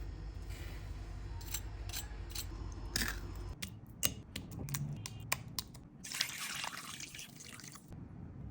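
Kitchen food-prep sounds: wet, splashy handling with a series of sharp clicks and taps, then a hissing rush lasting about two seconds near the end.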